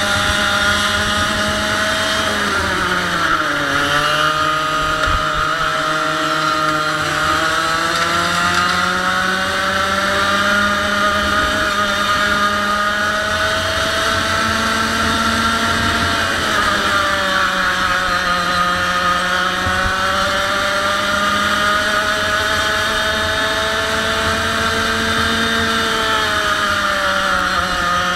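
100cc two-stroke kart engine running hard, its pitch dropping quickly as it slows about three seconds in, again around seventeen seconds and near the end, and climbing slowly back up each time as it accelerates.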